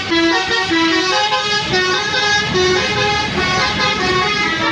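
A bus's multi-tone Basuri telolet horn playing a quick melody, its notes stepping up and down every few tenths of a second. Underneath is the rumble of the bus and traffic.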